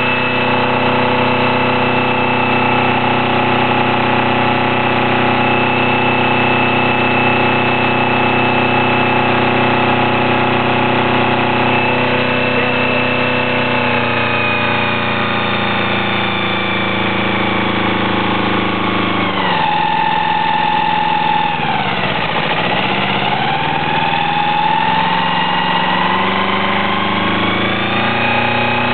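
1982 Yanmar 2GM two-cylinder marine diesel running with a high steady squeal over the engine note. About two-thirds of the way in, the pitches dip sharply and then climb back as the revs change. The owner hears this squeal only in forward gear, and has ruled out belts, water pump and alternator by running with the belts off, which points toward the KM2A cone-type transmission.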